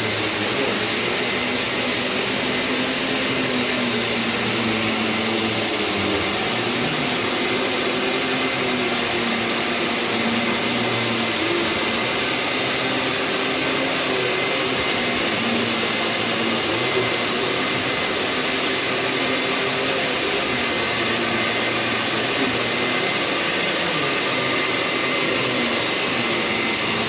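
Hyla water-filter vacuum cleaner running steadily while vacuuming a mattress topper: a constant whining hiss, with a lower hum that shifts slightly in pitch as the nozzle works.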